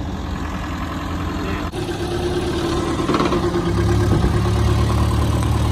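A forklift's engine running close by: a steady engine hum, joined by a louder, deeper rumble about two seconds before the end.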